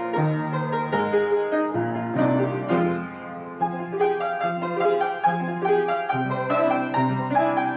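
Neoclassical piano music: a flowing pattern of notes that eases briefly about three seconds in, then picks up again.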